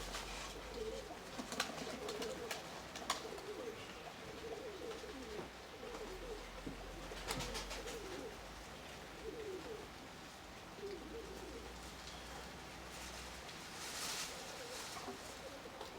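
Nikolaev pigeons cooing repeatedly in low, wavering calls, with a few sharp clicks here and there.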